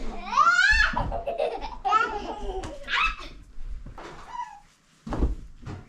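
Young girls laughing and squealing in rough-and-tumble play, opening with a high rising squeal and then breaking into bursts of laughter that die down.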